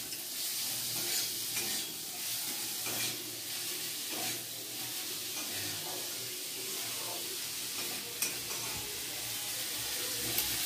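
Sliced onions sizzling in hot oil in a metal kadai, frying soft, with a metal spatula scraping and stirring them against the pan every second or two.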